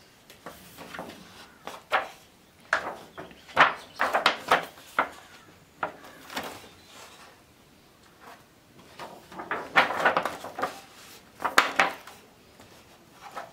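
Stiff silver-metallic photo pages of a wedding album being turned by hand: a run of irregular papery swishes and flaps as each thick page swings over and lands, loudest a few seconds in and again near the end.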